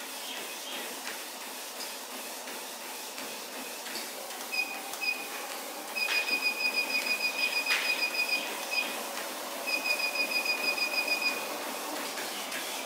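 Lifelong FitPro LLTM09 treadmill console beeping in quick runs of short high beeps, about five a second, as its speed button is pressed to change the belt speed. Underneath, the treadmill's motor and belt run steadily with the thud of footfalls on the deck.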